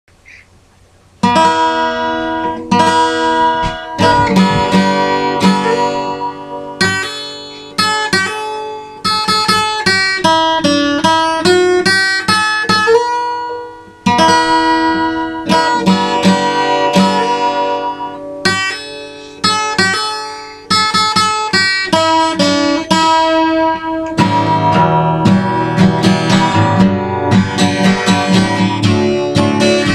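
Steel-string acoustic guitar played solo: a picked melody of single ringing notes begins about a second in, giving way to fuller strummed chords from about 24 seconds in.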